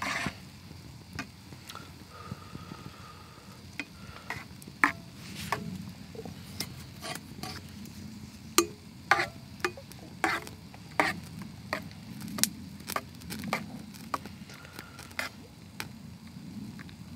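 Irregular sharp clicks and knocks, sometimes several in quick succession, over a steady low rumble.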